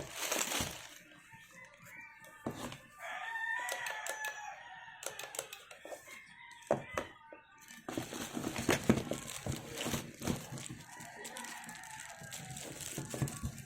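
A drawn-out bird call lasting about two seconds, with a fainter one later, over scattered clicks and knocks of a boxed power tool and its packaging being handled.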